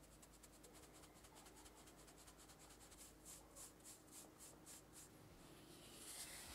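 Faint rhythmic shaking of a fine-mesh sieve sifting flour and cocoa powder into a glass bowl, about three to four soft ticks a second. Near the end, a brief rustle as a silicone spatula pushes into the sifted flour.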